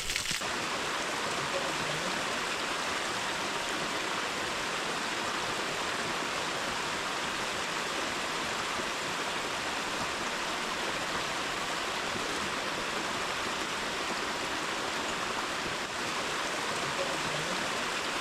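Steady, even rush of running water: a rain-fed canyon creek cascading over rocks.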